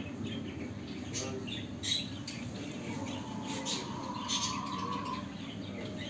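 Caged finches chirping: short high chirps at scattered intervals. About halfway through, a steady mid-pitched tone is held for about two seconds. Steady low background noise runs underneath.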